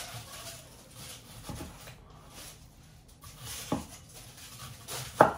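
Kitchen knife knocking on a wooden cutting board as an onion is cut: two short sharp knocks, the second and louder one near the end.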